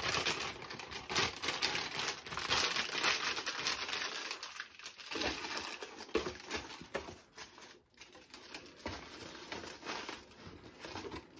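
Packaging crinkling and rustling as it is handled, with brief lulls about four and a half and eight seconds in.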